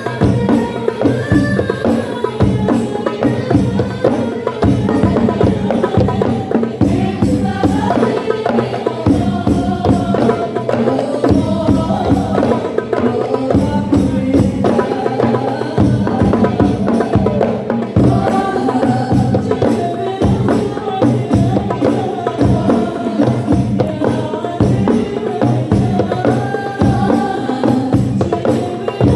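Voices singing or chanting together over fast, steady hand-drum percussion.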